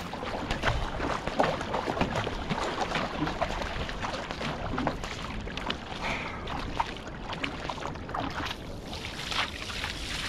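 Surfski paddle strokes: the blades dip and splash in the sea again and again, over the rush of water along the hull and some wind on the microphone.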